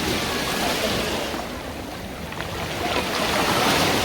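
Sea waves washing on the shore, easing off about halfway through and swelling again near the end.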